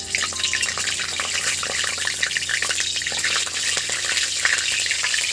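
Whole spices (cloves, cinnamon, mace, black and green cardamom, with shahi jeera) sizzling and crackling in hot mustard oil in a kadai. The sizzle breaks out suddenly as they hit the oil, then carries on steadily.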